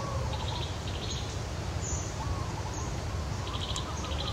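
Outdoor ambience: small birds chirping, with short rapid trills twice and brief high chirps in between, over a steady low rumbling background noise.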